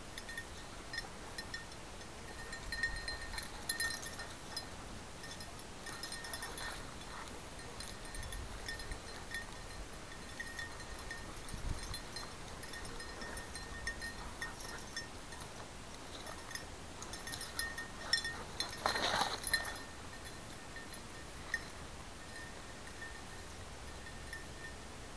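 Brush and dry weeds rustling and swishing as a hunter and springer spaniel push through thick cover, with faint metallic tinkling on and off. Late on comes a louder crash of brush.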